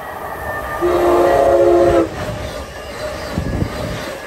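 Amtrak Acela high-speed electric trainset blowing its horn in one chord blast of about a second, then rushing past close by with wheel and track rumble and clacking.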